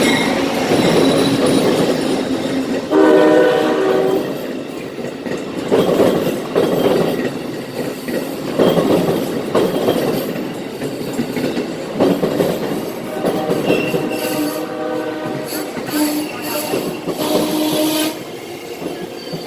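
Amtrak passenger train passing close by, wheels clattering over the rails, with its horn sounding a short blast about three seconds in and longer blasts near the end.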